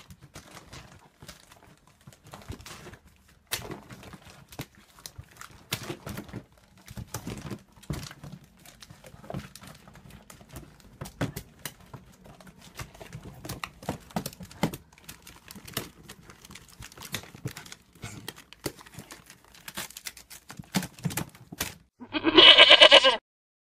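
Irregular scratching, clicking and scraping of a cat scrabbling about inside a plastic storage bin. Near the end comes a loud goat bleat, about a second long.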